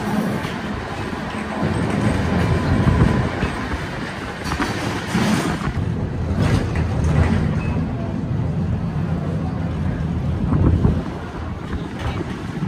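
Historic tram running on its rails, heard from on board: a steady low rumble with a few clacks about halfway through.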